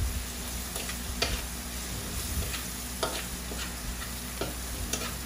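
Minced garlic and onion with pork bouillon cubes sizzling in a metal pan, stirred with a utensil that scrapes and clinks against the pan a handful of times.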